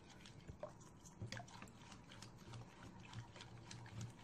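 Milk-and-spice marinade being stirred in a mixing bowl: faint liquid sounds with scattered light clicks.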